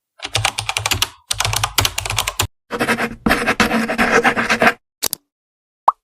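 Computer keyboard typing sound effect: rapid runs of key clicks in a few bursts, then a couple of single clicks near the end.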